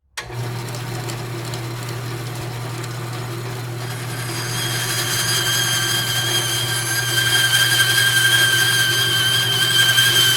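A woodworking power tool running: a steady low hum, joined about halfway by a high, steady motor whine that grows louder.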